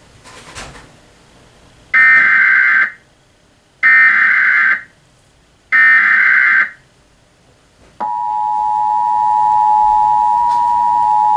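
Emergency Alert System broadcast: three short screeching SAME data bursts, the coded header announcing a Civil Emergency Message, then about two-thirds of the way in the steady two-tone EAS attention signal starts and holds.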